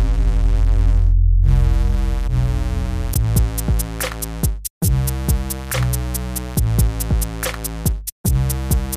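Electronic background music: sustained synthesizer notes, then a steady drum-machine beat comes in about three seconds in. The music cuts out briefly twice.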